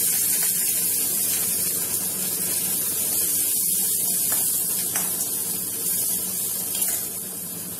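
Chopped onions sizzling as they hit hot oil in a steel kadai: a loud, steady hiss that starts suddenly as they go in and eases slightly near the end. A few light clicks of the spoon stirring them come in the second half.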